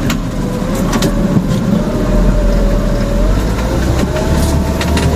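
All-terrain vehicle's engine running steadily as it creeps down a steep ledge under braking. A thin, wavering squeal from its brakes runs throughout, with a few short knocks and rattles.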